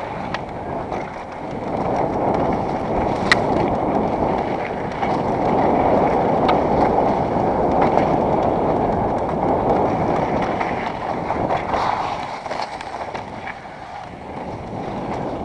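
Mountain bike running fast down a dirt singletrack: a steady rush of wind on the helmet camera's microphone and tyre noise, with a few sharp clicks and knocks from the bike. It eases near the end.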